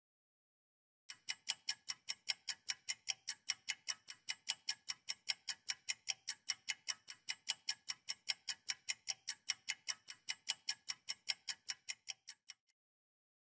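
Clock-ticking sound effect of a quiz countdown timer: rapid, even ticks, several a second, starting about a second in and stopping shortly before the end.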